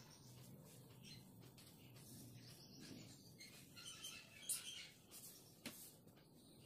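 Near silence: faint rustling and a few soft taps of cut cotton fabric panels being moved and laid on a tiled floor, with faint high chirping about four seconds in.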